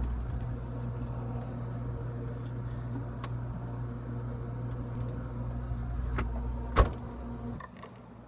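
Refrigerator running with a steady electrical hum while its door is open and bottles are handled. A single loud knock comes near the end, and the hum falls away just after.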